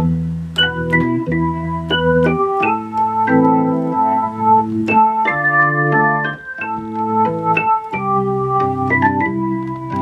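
Electronic keyboard set to an organ voice, played by hand: a melody of short notes over held chords in the low register.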